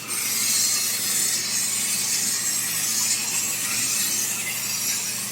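CNC laser cutter cutting sheet metal: a steady high hiss that starts abruptly.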